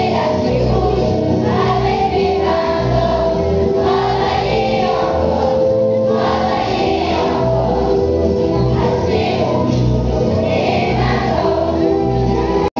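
A children's school choir, with some adult voices among them, singing over an instrumental accompaniment with a bass line. The sound drops out for an instant near the end, where the recording is cut.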